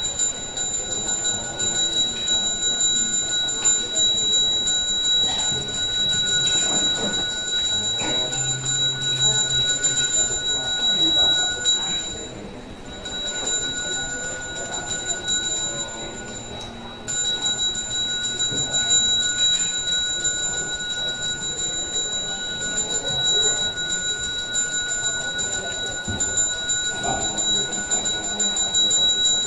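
A small ritual handbell rung continuously, making a steady high ringing that breaks off briefly twice, about twelve and seventeen seconds in.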